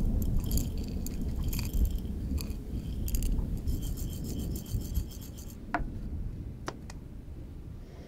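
Dry loose-leaf tea blend rattling and sliding inside a tilted glass jar as it is poured into a wooden spoon, a dense crackly rustle for about five seconds. Then two sharp clinks, about a second apart.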